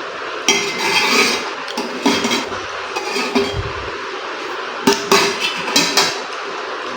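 Metal spoon and fork clinking and scraping against a dish while noodles are eaten. The clinks come in short runs about half a second in, around two seconds in, and again around five to six seconds in, over a steady hiss.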